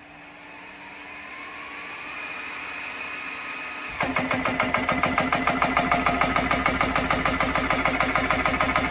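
Small high-pressure air compressor filling a PCP air rifle through its fill probe. It starts with a rising whine for about four seconds, then the pump cuts in with a rapid, even pulsing over a steady hum.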